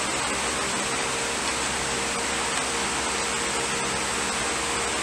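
Steady hiss with a faint low hum, as from a running room fan.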